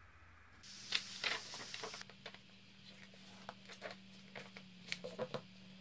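Paper pages of a paperback picture book being turned and pressed flat: a short rustle about a second in, then light taps and crinkles of paper.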